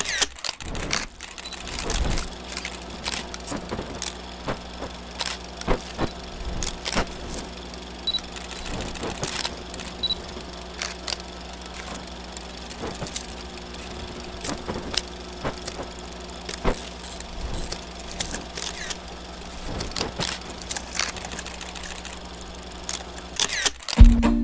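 Old-film sound effect: a steady low hum under a faint hiss, scattered with irregular crackles and pops, like a worn film reel running through a projector. It gives way to music at the very end.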